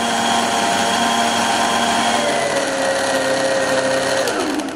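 Electric mixer grinder running at speed, grinding tomatoes, ginger and green chillies in its jar into a fine purée. The motor whine drops in pitch a little past halfway, then it is switched off and winds down near the end.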